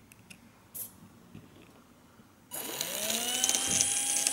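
Small electric motors of a leftover model helicopter, driven by an L298N motor controller, starting up at power-on after a few faint clicks: a whirring buzz comes in suddenly about two and a half seconds in, with a whine that rises in pitch and settles into a steady tone.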